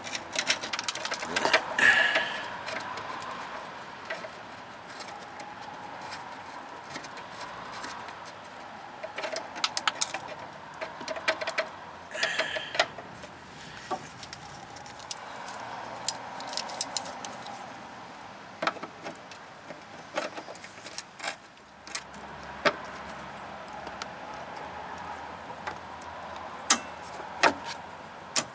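Replacement brake line being pushed up and worked into place under a car, giving scattered light metallic clicks and knocks against the underbody, with a couple of louder scrapes about two seconds in and again near the middle.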